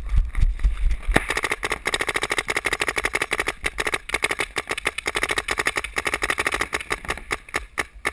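Paintball marker firing in a fast, steady stream of many shots a second, starting about a second in and thinning out near the end.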